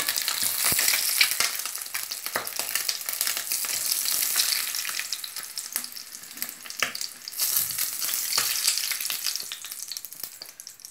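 Hot oil sizzling in a frying pan, with scattered clicks and scrapes of a utensil against the pan. The sizzle fades near the end.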